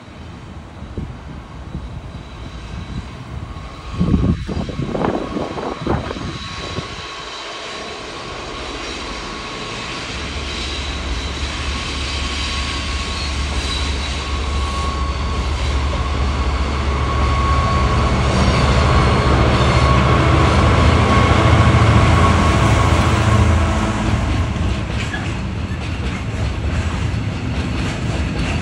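Class 66 diesel locomotive approaching with a freight train, its two-stroke V12 engine drone growing steadily louder to a peak near the end before easing slightly. A few irregular buffets of wind hit the microphone about four to seven seconds in.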